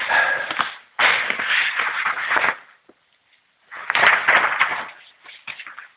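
Rustling and crackling handling noise right at the microphone, in three loud bursts with a few scattered taps after them.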